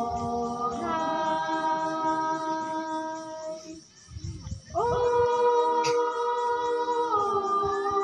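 A group of women's voices singing a traditional Naga folk song a capella in long held notes that slide down at the end of each phrase, with a short breath pause about four seconds in before the next note comes in.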